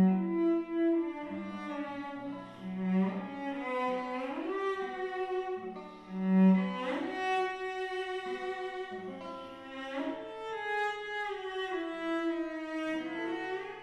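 Cello and classical guitar duo: the cello plays a slow, singing melody of long bowed notes, sliding up into several of them, over a light plucked guitar accompaniment. The strongest cello notes are low ones at the start and about six seconds in.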